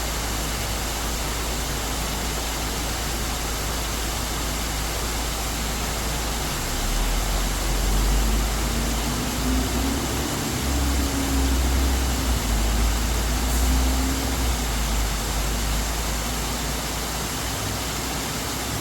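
Waterfall pouring down into a valley stream: a steady rush of water. A few seconds in, a low rumble with a faint wavering drone comes in and grows louder over it, then fades out near the end.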